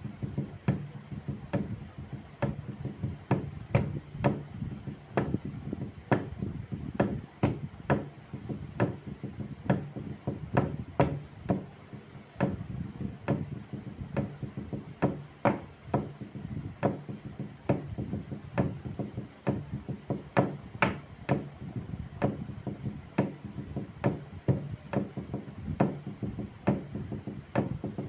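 Wood being struck again and again: sharp knocks about two or three times a second, over a steady low hum.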